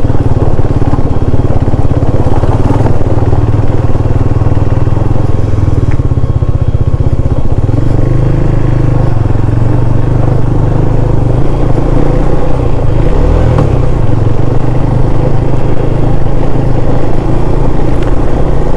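KTM Duke 390's single-cylinder engine running steadily while the bike is ridden along, its note shifting slightly about halfway through.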